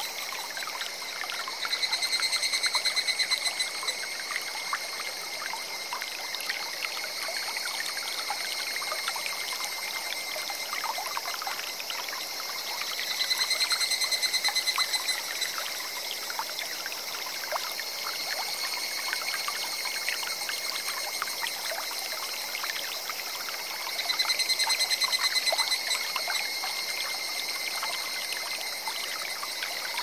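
Forest stream babbling steadily. Three times, about eleven seconds apart, a pulsed trilling animal call about two seconds long rises above it and is the loudest sound.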